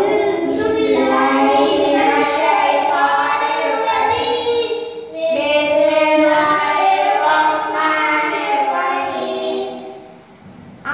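Several boys singing together unaccompanied, in two long melodic phrases with a short break between them.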